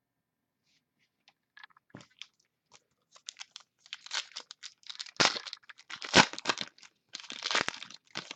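A trading card pack's wrapper being torn open and crinkled by hand: a few faint clicks, then a few seconds of dense crackling and rustling with sharp louder rips.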